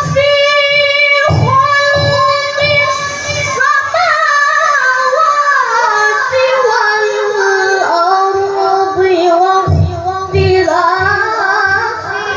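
A high voice singing a slow, ornamented melody of long held notes that waver and slide in pitch, over low drum hits that come in clusters near the start and again near the end.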